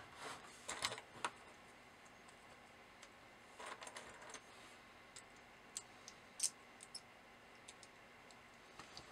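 Faint, scattered light clicks and taps of small plastic pin headers and thin circuit boards being picked up and handled, a black 8-pin header fitted into a board's holes; one sharper click a little past the middle.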